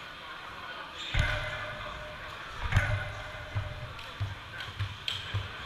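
Dodgeballs thumping on a sports-hall floor, with an echo in the hall: two heavy impacts about a second and a half apart, then a run of lighter, evenly spaced thuds.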